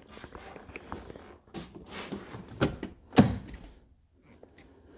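Handling noises at a car door and its rubber window seals: rubbing and several short knocks, the loudest a thunk about three seconds in.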